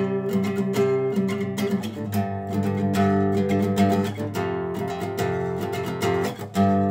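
Acoustic guitar strummed in a steady rhythm, playing chords as an instrumental passage of a song.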